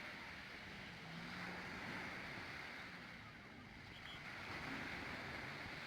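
Faint sea surf and wind noise that swells and eases, with a low, steady motor hum underneath.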